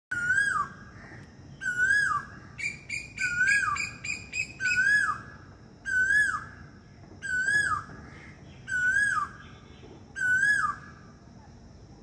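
A cuckoo calling over and over: eight calls about every second and a half, each a single note that rises briefly and then drops away. A quick run of short, higher notes, about five a second, comes in between roughly the third and fifth seconds.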